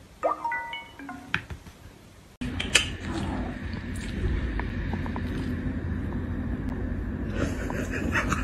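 Short musical notes from a smartphone game as a cat's paw taps the screen, a quick run of tones stepping up and down. About two and a half seconds in it cuts to a steady low background hum with a few light clicks.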